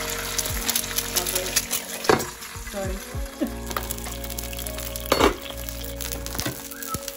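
Egg frying sunny-side up in oil on a flat nonstick pan: a steady sizzle full of small crackling pops, with two sharper, louder pops about two seconds and five seconds in.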